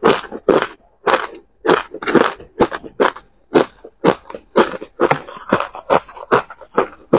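Crushed ice being chewed and crunched between the teeth, picked up by a close microphone: a steady run of sharp, crisp crunches, about two a second, coming a little faster near the end.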